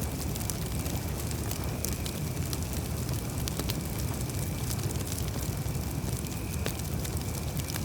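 Wood campfire crackling: many small, irregular sharp pops and snaps over a steady low rush of the burning fire.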